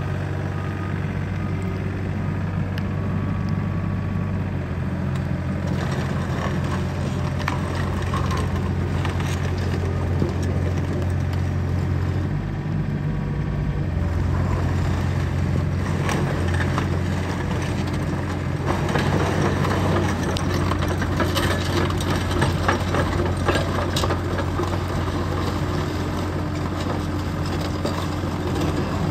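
Yanmar 3TNE88 three-cylinder diesel of a Kobelco SK40UR mini excavator running steadily, its note shifting a few times as the boom and arm are worked hydraulically. From about the middle on, the track clatter and metal clanks of the crawler tracks grow as the machine travels.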